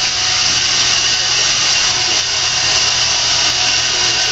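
A steady, loud rushing noise with no rhythm or breaks.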